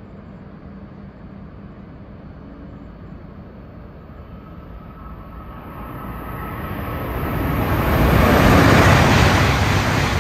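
Shinkansen bullet train approaching and running through the station at high speed without stopping: a low steady hum swells from about halfway into a loud rush of air and wheel noise, loudest near the end.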